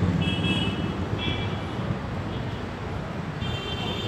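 Steady low rumble of a diesel-hauled express train moving away into the distance. Brief high-pitched ringing tones come twice in the first two seconds and again near the end.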